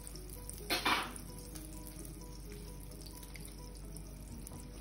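Salted butter sizzling and crackling in a hot flat pan, with one short, louder burst of sizzle about a second in as a burger bun half is laid cut side down in the butter.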